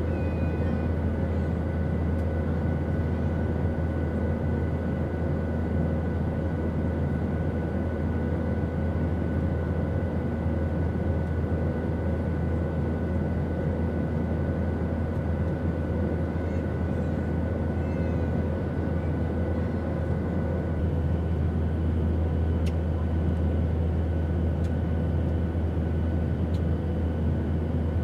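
Steady drone of an airplane in flight: a deep, even rumble of engine and airflow noise with a few faint steady whines above it.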